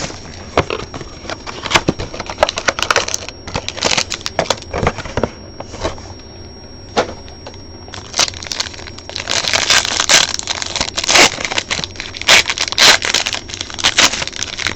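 Plastic wrap crinkling and tearing, with cardboard and cards rustling and clicking, as a sealed box of trading cards is opened; the crackling is busiest and loudest in the last third.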